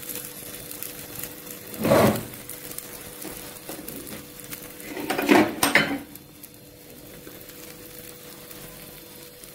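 Two brief clatters of kitchenware, like a pan or dishes being handled, about two seconds in and again around five to six seconds in. Underneath is the faint, steady sizzle of the omelette frying in the pan over a low gas flame.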